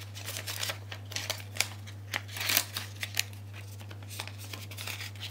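Polymer banknotes and a plastic binder pocket crinkling and rustling as notes are handled and slid in: a string of sharp little crinkles and clicks, with a longer rustle about two and a half seconds in, over a steady low hum.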